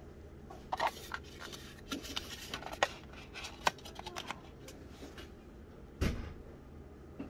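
Handling noise from a lip balm tube and its white molded packaging tray: a run of small clicks, taps and scrapes as the tube is fitted into the tray, then a single dull thump about six seconds in.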